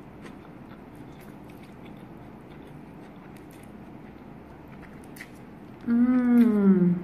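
A person chewing a mouthful of noodles, with faint wet clicks. About six seconds in comes a loud closed-mouth "mmm" of about a second, falling in pitch, in enjoyment of the food.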